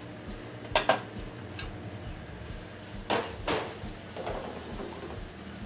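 Kitchen utensils knocking against cookware: two quick sharp clinks about a second in and two more around three seconds in, over a low steady hum.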